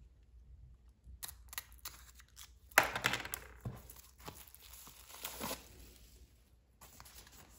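Plastic shrink wrap being torn and peeled off a CD album package: a sharp rip about three seconds in, then crinkling on and off, dying away near the end.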